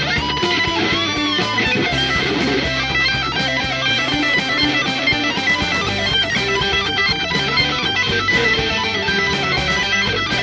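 Electric guitar played through a Noah'sark effects pedal, playing fast melodic lead lines with pitch bends over a band backing with a steady beat and bass.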